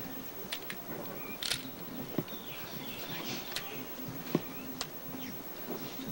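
Quiet outdoor ambience: scattered light clicks and knocks, a few short bird chirps, and a brief rustle about one and a half seconds in.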